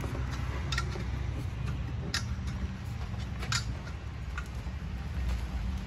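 A few sharp metallic clicks and taps, about four spread over several seconds, as a fitter handles the brass valve fitting of a CNG cylinder, over a steady low hum.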